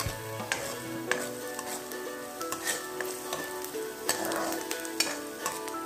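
Chopped onion, ginger and garlic sizzling in hot oil in a metal wok as it is light-fried, stirred with a steel spoon that scrapes and knocks against the pan about five times.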